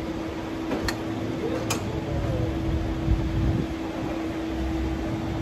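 A steady mechanical hum over a low rumble, with two short clicks about one and two seconds in.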